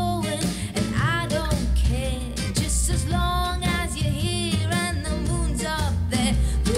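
A song with a sung vocal over guitar and a strong bass line, played back through desktop PC speakers and picked up by a microphone.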